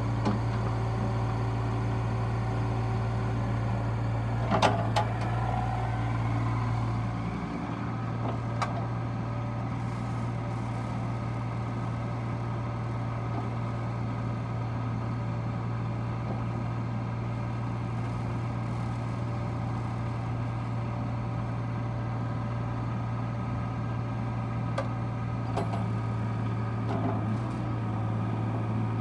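Diesel engine of a CAT 303.5 mini excavator running steadily, with a sharp knock about five seconds in and a few lighter knocks later.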